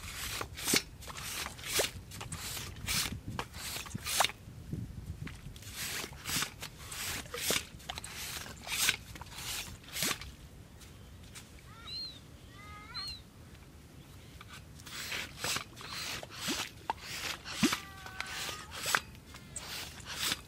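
Nipper pump (yabby pump) worked in wet sand: a run of irregular sharp sucking and squelching strokes as the pump is plunged, drawn up and emptied to bring up pink nippers. Birds chirp briefly twice in the middle and again near the end.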